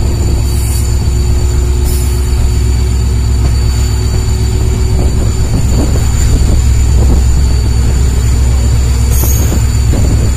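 WDP4D diesel locomotive, with its EMD two-stroke engine, passing close at speed with a loud, steady low rumble and hum. From about halfway through, wheels clatter over the track as the LHB coaches follow.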